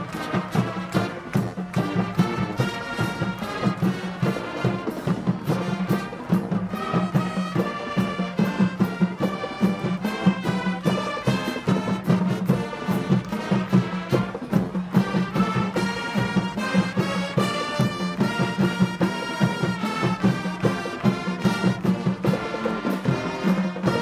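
Marching band playing: brass section holding chords and melody over a steady drum beat.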